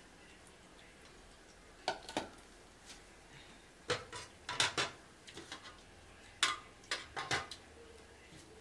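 Stainless steel pots, lids, bowls and spoons clinking against each other while food is served, in three clusters of sharp clinks.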